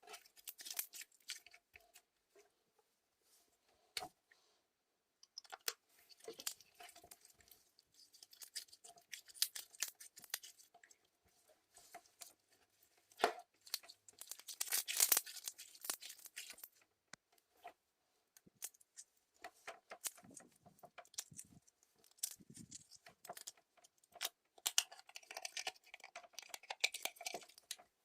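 Clear slime being squished and stretched by hand, with sticky crackling and clicking pops in irregular bursts. The densest, loudest crackling comes about halfway through.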